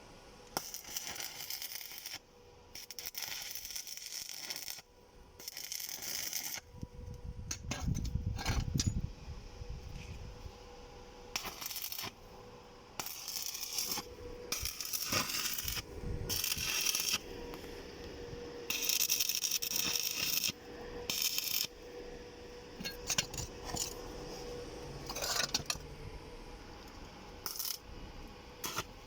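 Metal clinking and scraping in irregular bursts as steel tiller cutter parts and fasteners are handled during repair.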